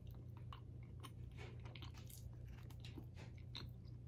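A person biting into and chewing a slice of oven-baked frozen pizza, with faint, irregular crunches of the crust over a steady low hum.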